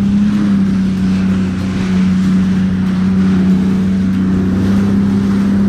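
Jet ski engine running at a steady cruising speed, a constant drone, with water rushing and spraying off the hull as it skims the sea.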